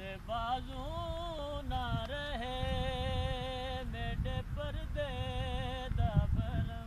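A man reciting a noha, a Shia lament, unaccompanied: one voice in long held notes with a wavering pitch, broken by short pauses. A low, uneven rumble of wind buffeting the microphone runs underneath and is strongest about six seconds in.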